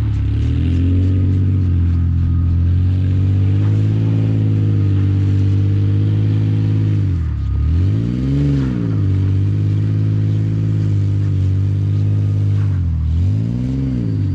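Toyota Tacoma pickup's engine held at steady high revs while drifting in snow. Twice, about seven and thirteen seconds in, the revs drop briefly and then climb back up.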